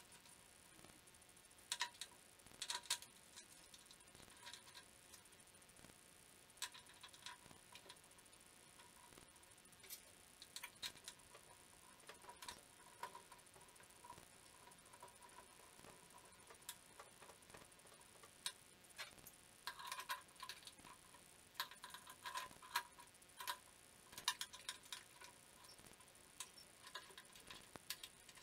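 Faint scattered clicks and metallic clinks of a spanner working bolts on a metal scooter frame, coming in small clusters with quiet gaps between.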